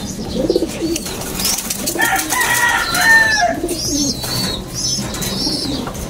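Domestic racing pigeons cooing repeatedly in their cages, low and wavering, with higher chirping calls over them, loudest around the middle.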